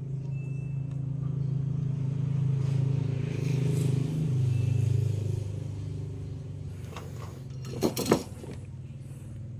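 A low motor hum, like an engine running nearby, that swells to its loudest about halfway through and then eases off. A few light clicks come near the end.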